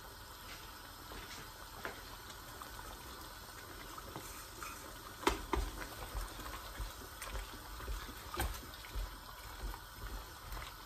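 A pot of stew simmering faintly, then chopped onions tipped in and stirred with a wooden spoon from about five seconds in, with a couple of sharp knocks and soft repeated thuds of the spoon working through the pot.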